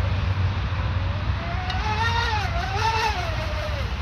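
Twin brushless inrunner motors of an RC speedboat whining as it runs on the water, the pitch rising and falling twice with the throttle before fading near the end, over a steady low rumble.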